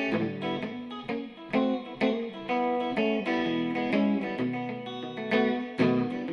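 Background music: guitar notes played one after another in a steady rhythm.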